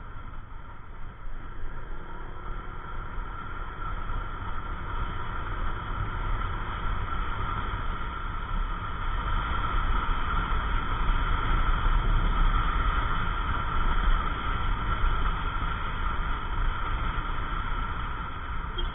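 Yamaha NMAX 155 scooter's single-cylinder engine running while riding along, under a steady rush of wind on the microphone. It grows louder through the middle and eases off near the end.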